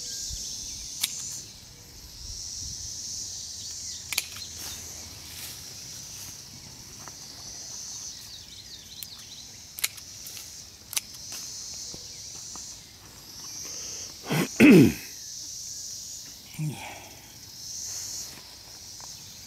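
A steady high-pitched insect chorus of summer crickets and katydids, with a few sharp clicks from pruning shears and handling of the budwood. About fourteen seconds in, a man makes a loud sudden sneeze-like burst that falls in pitch, followed by a short grunt.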